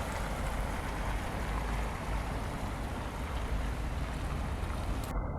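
Steady wind noise with a low, fluctuating rumble of wind buffeting the microphone.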